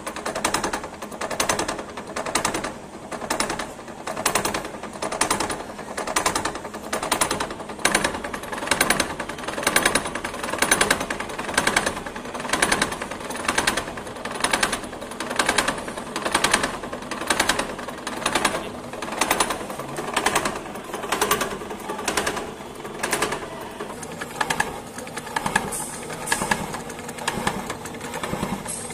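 Horizontal milling machine with a convex form milling cutter cutting a concave groove dry into a cast-iron block at a slow feed. The cut is a steady, rhythmic chatter of the cutter's teeth that swells and fades about once a second.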